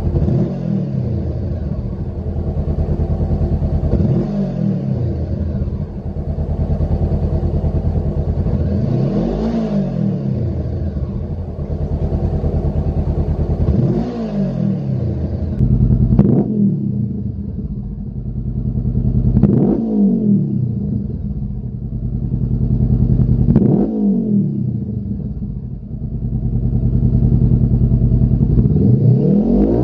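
Honda CBR500R's parallel-twin engine idling and being blipped, revving up and dropping back about every four seconds, with a longer rev near the end. The first part is through the stock silencer. Partway through it switches to the Lextek RP1 aftermarket full exhaust system, with sharper blips.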